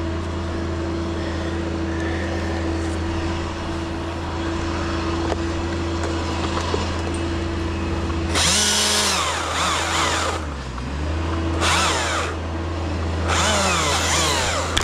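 Husqvarna chainsaw idling steadily, then revved in three short bursts in the second half, its pitch sinking within each burst.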